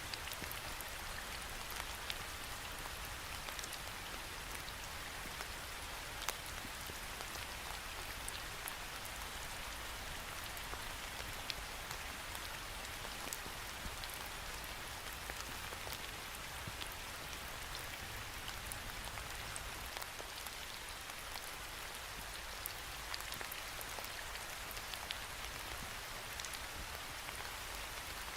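Steady rain pattering against a window pane: an even hiss sprinkled with many small sharp drop ticks.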